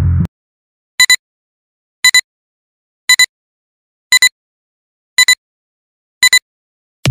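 Countdown beeps: six short electronic beeps about one a second, each a quick double pip of a high tone, with silence in between.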